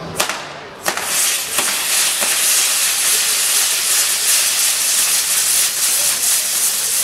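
Ground-firework wheels on a metal frame igniting: a sharp crack just at the start and another about a second in, then a loud steady hiss as the fountains on the wheels spray sparks.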